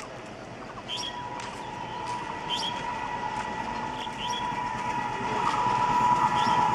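ALCO-built WDM-3A diesel locomotive hauling a passenger express as it approaches, growing steadily louder, with a steady high-pitched tone setting in about a second in. Birds chirp briefly now and then.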